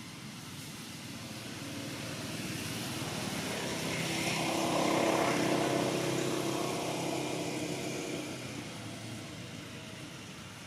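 An engine passing by, growing slowly louder to a peak about five seconds in and then fading away.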